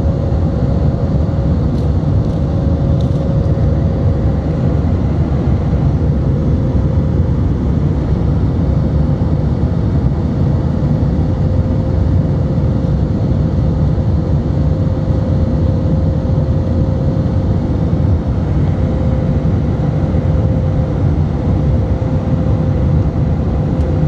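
Cabin noise of an Airbus A320 in flight, heard from a window seat over the wing: a loud, steady rumble of the jet engines and rushing air, with a steady mid-pitched hum running through it.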